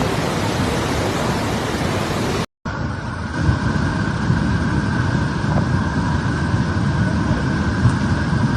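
Steady rush of fast-flowing floodwater, heard across two clips, with an abrupt cut about two and a half seconds in; the second clip's noise is deeper.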